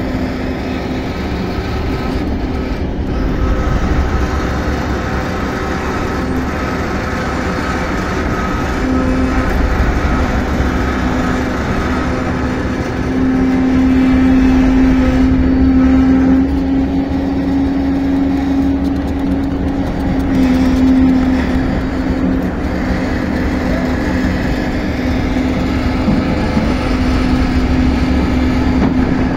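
Diesel engine running steadily with a constant hum, louder for several seconds in the middle.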